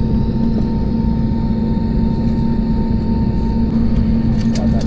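Steady, loud drone of an airliner's cabin: engine and air-system noise with a constant low hum.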